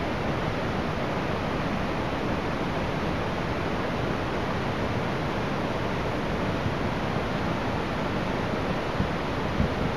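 A river in flood rushing past, a steady even noise of fast, high water.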